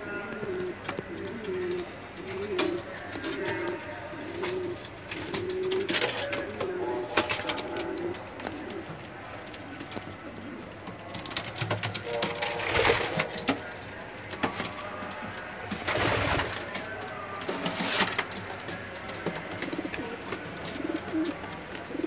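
Homing pigeons cooing in a loft: repeated low, wavering coos in the first few seconds and again near the end. Several short rushing noises come in between, loudest a little past the middle.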